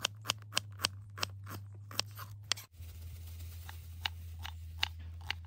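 Kitchen knife chopping onion on a wooden cutting board: crisp, regular taps about three a second, breaking off about halfway and then going on a little more slowly.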